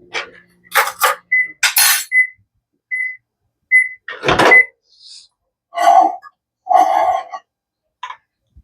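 Microwave oven running with a low hum while the butter inside pops and spatters, then the hum stops and the microwave gives five short high beeps evenly spaced; a thunk follows about four seconds in, then two louder knocks or bumps near the end.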